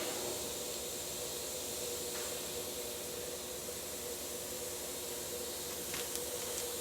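Steady background hiss with a faint constant hum, and a couple of faint light clicks near the end.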